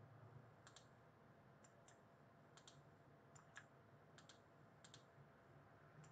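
Faint computer mouse clicks, many heard as a quick double tick of button press and release, coming about once a second over a low steady hum.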